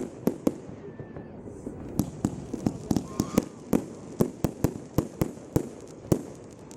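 Fireworks exploding at a display: a fast, irregular run of sharp bangs, about three or four a second, each with a short echoing tail.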